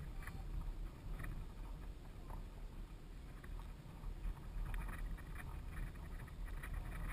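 Low wind noise on the camera microphone, steady throughout, with faint short sounds now and then from farther off.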